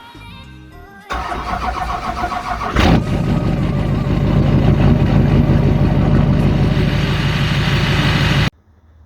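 An engine starts up about a second in, with a sharp burst shortly after, then runs loud and steady until it cuts off suddenly near the end.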